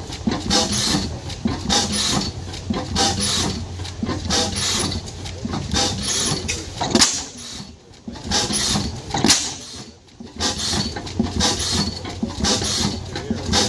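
Large antique stationary engine with a big spoked flywheel running slowly, giving a steady rhythm of exhaust puffs about two a second. The puffs drop away briefly twice near the middle.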